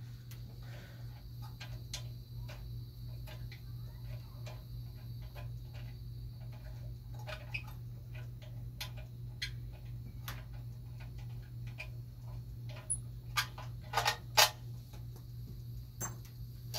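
Hand tools working bolts on a small generator engine: scattered light metallic clicks and taps, with a few louder knocks near the end, over a steady low hum.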